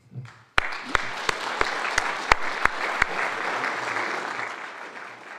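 Audience applauding. It starts about half a second in, with one set of louder, close claps about three a second over the first few seconds, and the applause dies away near the end.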